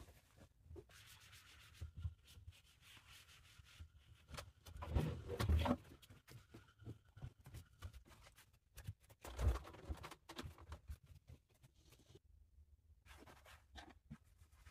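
Quiet handling sounds of a person cleaning a room: rubbing and shuffling, with dull thumps about five seconds in and again about nine and a half seconds in.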